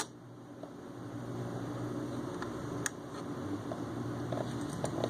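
Marantz 6100 belt-drive turntable running with a steady low mechanical hum, its automatic tonearm return just completed; a sharp click at the very start and a few faint clicks later.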